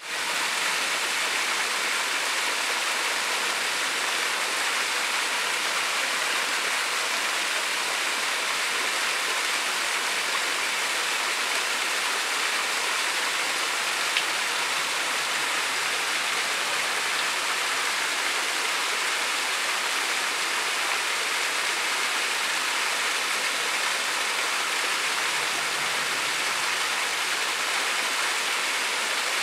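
Dry Run Falls, a small waterfall dropping over stepped rock ledges into a pool: a steady, even rush of falling and splashing water.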